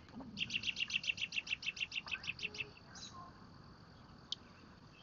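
A bird's rapid trill: a run of about twenty high chirp notes, roughly nine a second, lasting about two seconds, over a faint steady drone of insects.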